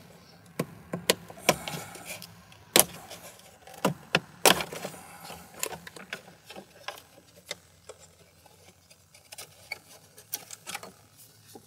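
Plastic center-console trim panels of a 2017 Corvette being pried and worked loose: irregular sharp clicks, snaps and knocks of clips and tabs releasing and pieces rattling as they are handled, busiest in the first half and sparser toward the end.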